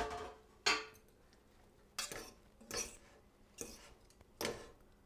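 A utensil stirring orzo pasta and asparagus in a cooking pot: six short scrapes and clinks against the pot, roughly one a second.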